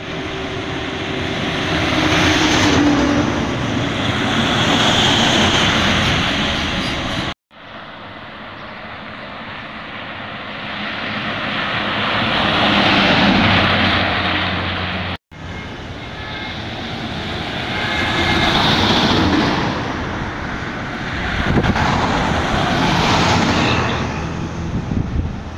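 Intercity buses passing at speed on a highway, engine and tyre noise swelling as each one approaches and fading as it goes by, several times over. Two brief dropouts break the sound.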